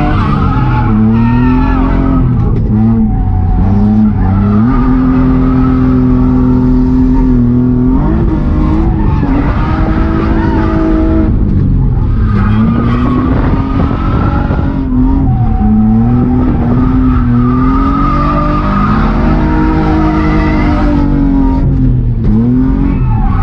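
BMW E36 325i's M50B25 straight-six with a blast-pipe exhaust revving hard during a drift, its pitch climbing, holding high and dropping back several times as the throttle is worked, with tyres squealing and skidding.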